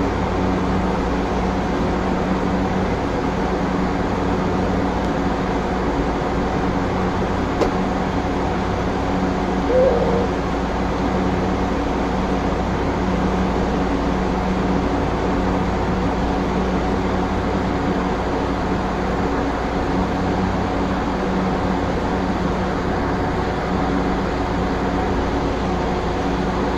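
Mexico City Tren Ligero light-rail train running, heard from inside the driver's cab: a steady rumble of wheels on rail with a constant hum of motors and equipment. A single sharp click comes a little before eight seconds in, and a brief squeak about ten seconds in.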